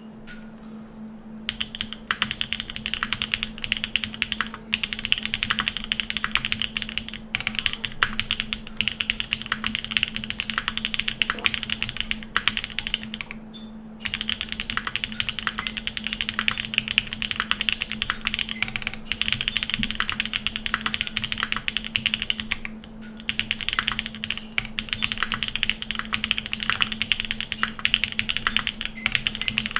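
Fast typing on a 7V custom mechanical keyboard by Gok with lubed Jade Black switches on a polycarbonate plate. Keystrokes come in quick runs with a few short pauses, starting about a second and a half in, over a faint steady low hum.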